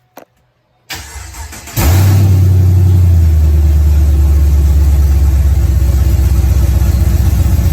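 Pontiac G8 GT's 6.0-litre V8 cranked by the starter for about a second, then catching and settling into a loud, steady idle through newly fitted stainless steel headers.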